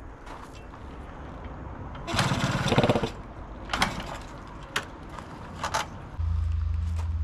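Suzuki MR50's 50cc two-stroke single being kick-started. It sputters briefly about two seconds in, then several more kicks each give a sharp knock. Near the end the engine catches and settles into a steady, pulsing idle.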